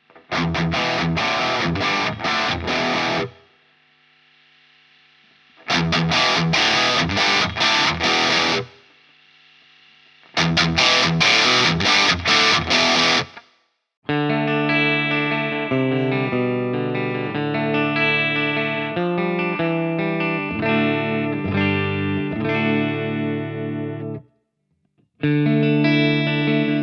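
Distorted electric guitar played through the TC Electronic Impulse IR loader's cabinet simulation. It plays three short, dense riffs, each left to ring out briefly. About halfway through it moves into a longer passage of separate notes, which stops for a moment near the end and then resumes.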